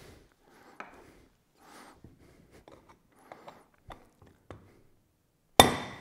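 Rubber hammer striking a drift set against the rocker shaft of an aluminium Ironhead Sportster rocker box, to drive the shaft out. A few faint taps and handling clicks come first, then one sharp, loud blow near the end that rings briefly.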